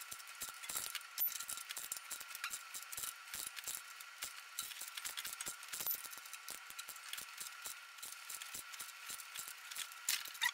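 Ratcheting wrench clicking in quick, uneven runs of faint ticks while it turns the plunger of a pulley installer tool, pressing the pulley onto the power steering pump shaft.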